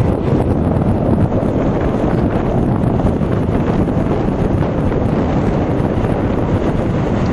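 Wind buffeting the microphone of a camera on a moving electric bike: a loud, steady, deep rush of noise with no breaks.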